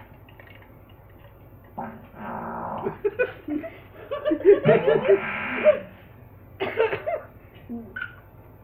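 Fart sound effects played from a soundboard, in several noisy bursts, with people laughing over them.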